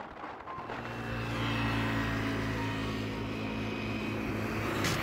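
A car's engine running with tyre and road noise while driving, a steady drone that settles in about a second in, with one click near the end.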